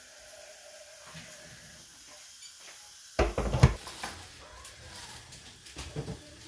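Kitchen handling sounds at a wooden chopping board. Faint hiss at first, then one short loud clatter about halfway through, then a few lighter knocks and rustles near the end.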